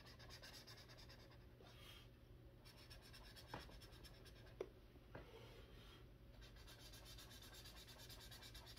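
Felt-tip marker colouring quickly back and forth on a colouring-book page: faint, rapid scratchy strokes in runs, broken by short pauses, with a couple of soft knocks in the middle.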